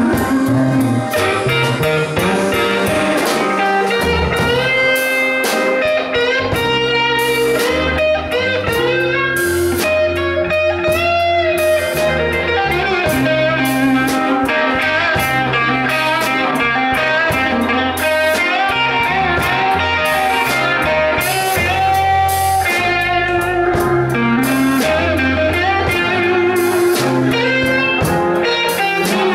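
A live blues band: an electric guitar plays a lead line with bent notes over bass guitar, a drum kit and keyboard.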